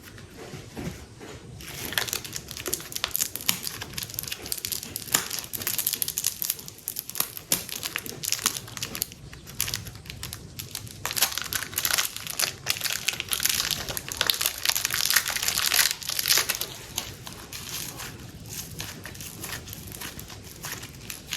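Plastic packaging crinkling and crackling as it is handled close to the microphone, with a busy stretch of dense crackles from about two seconds in, loudest around the middle, then easing off near the end.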